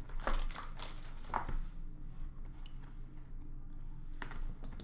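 Upper Deck Clear Cut hockey trading cards being flipped through and set down by hand: a few light, sharp clicks and rustles, spaced out with quiet gaps between.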